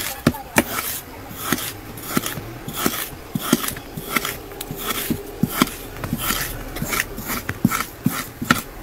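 Packed kinetic sand being sliced and scooped with metal cutting tools: a series of crisp crunching cuts, about two a second, as pieces break away and crumble.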